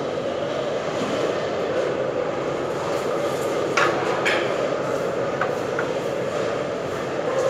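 A loud, steady rushing drone of running machinery or ventilation. About four seconds in come two sharp knocks half a second apart, followed by two fainter clicks.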